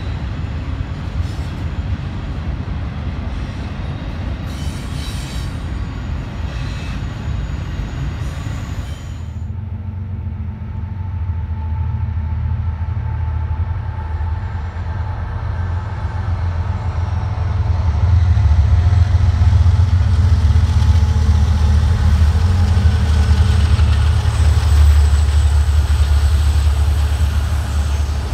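Freight trains passing: first a distant double-stack container train as a steady, wide rumble, then, after a sudden change about 9 s in, a locomotive-led freight train with autorack cars passing close with a deep low rumble and a few thin whining tones. The rumble grows louder about halfway through and stays loud.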